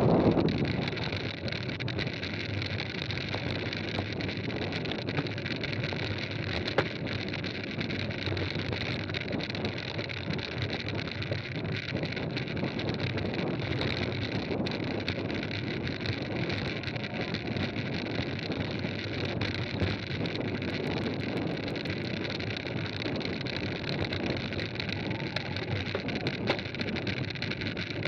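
Mountain bike rolling fast on a gravel road: steady tyre noise over the gravel, with a few small clicks and wind on the microphone.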